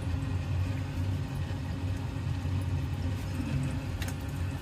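A steady low hum with a faint click about four seconds in.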